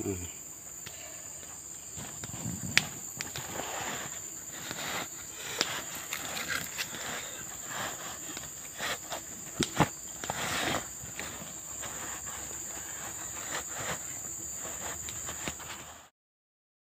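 A steady, high-pitched insect drone, with rustling of cloth and scattered small clicks and knocks as trousers are pulled off and handled. All sound cuts off suddenly near the end.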